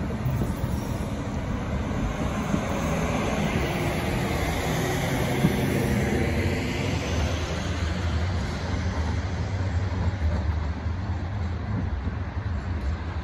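Sheffield Supertram Class 399 tram-train running away along the track after leaving the stop: a steady rumble of wheels on rail, with a faint pitched whine in the middle.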